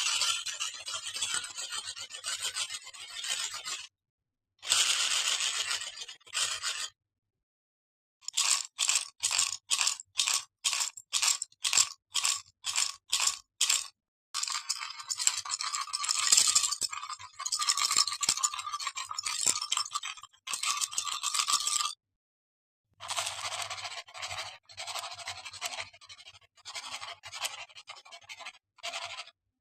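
Household objects scraped and rubbed against each other as improvised sound effects, in several separate takes cut apart by dead silence. In the middle comes a run of about a dozen short scraping strokes, roughly two a second, followed by a longer continuous scrape.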